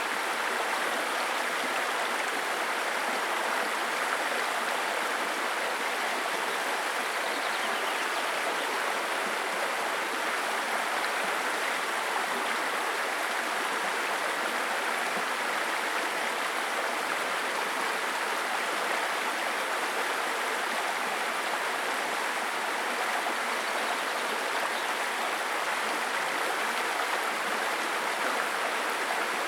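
A babbling brook: shallow stream water burbling steadily over stones, an even rushing and gurgling with no pauses.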